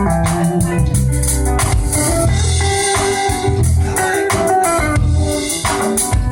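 Live band playing instrumental music: drum kit, guitars, bass and shaker.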